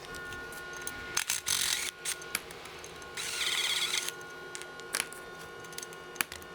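Hand tools working the bolts out of a trunk hinge: scattered clicks and knocks, a brief scraping rush about a second in, and a short burst of rapid ratchet clicking around the middle, over background music.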